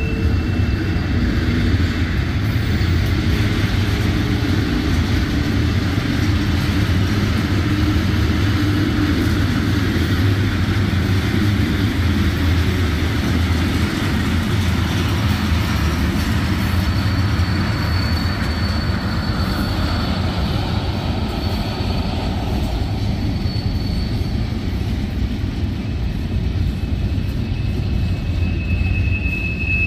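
Freight cars of a manifest train rolling past with a steady, loud rumble of wheels on rail. A thin high wheel squeal rises over it for several seconds a little past the middle, and again near the end.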